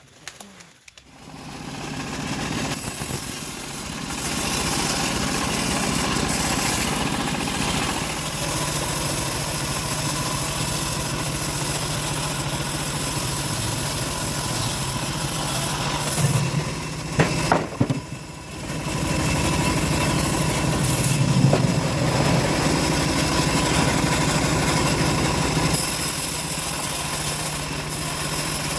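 Engine of a homemade bandsaw sawmill starting about a second in and building up to a steady run over the next few seconds. Past the middle it drops briefly, with a few sharp knocks, then picks up again.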